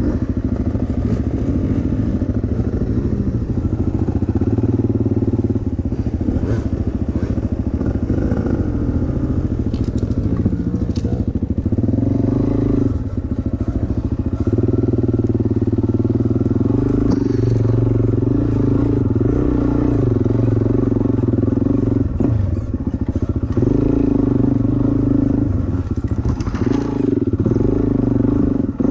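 Dirt bike engine running, ridden along a forest trail: the revs hold fairly steady and drop briefly three times as the throttle is rolled off, then pick up again.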